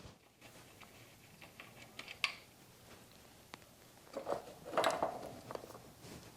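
Faint clicks and scraping of small parts and hand tools being handled, with a sharper click about two seconds in and a short cluster of clattering noises around the fourth and fifth second.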